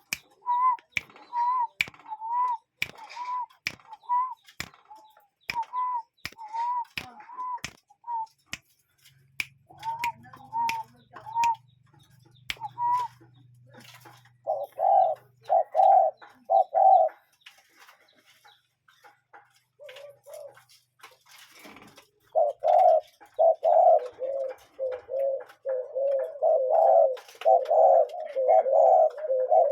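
Cuckoo calling: first a run of short, rising-and-falling whistled notes, one or two a second. After a pause about halfway in, lower repeated notes at two pitches take over, coming faster and more continuously toward the end.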